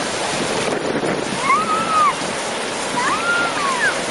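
Small sea waves washing in the shallows, with strong wind rushing on the microphone. Twice, a short high call rises and falls above the surf.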